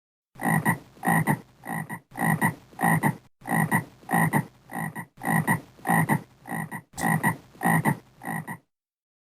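A frog croaking over and over, about fourteen short, rough croaks at roughly two a second, several of them in quick double pulses.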